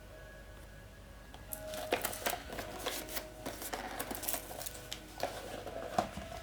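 Packaging of a Lenormand card deck being handled and opened: rustling, crinkling and small clicks start about a second and a half in and go on to the end, over faint background music.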